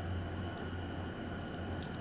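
Steady low hum and faint hiss of a small room, with two light clicks, one about half a second in and a sharper one near the end.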